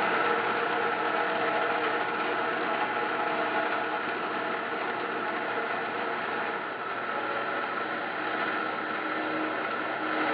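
Small wet band saw running steadily as its blade cuts through the live rock beneath a zoanthid coral colony.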